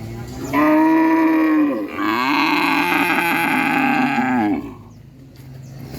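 A cow mooing twice, two long moos one straight after the other, the second lower and more drawn out. Fainter mooing comes before and after them.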